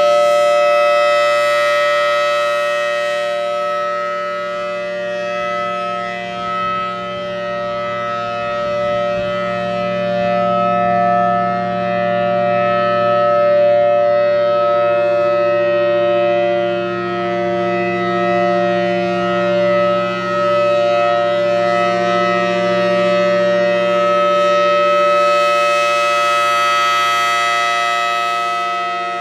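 Federal Signal Thunderbolt 1000T outdoor warning siren sounding its steady Alert signal, a loud chord of several held tones. It swells louder near the start and again near the end as the rotating horn turns toward the listener and away.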